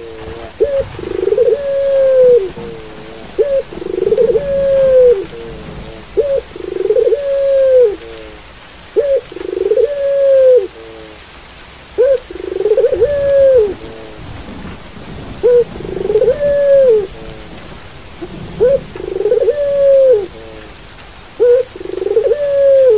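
Caged puter pelung (Barbary dove) cooing over and over: each call is a short note followed by a longer drawn-out coo that rises and falls, repeating about every two seconds. Steady rain runs in the background.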